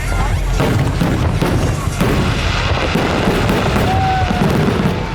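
Fireworks display going off: a dense run of booms and crackling bursts over a deep rumble.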